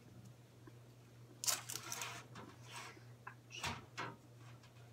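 Handling noises on top of a glass terrarium as a UVB strip lamp and its cords are set in place: a cluster of sharp knocks and scrapes about a second and a half in, and a few more near the four-second mark, over a steady low hum.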